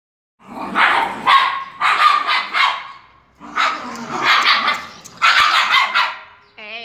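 A chihuahua and a white spitz play-fighting, giving rough growls and barks in two long spells. Near the end one dog gives a short, wavering, high call.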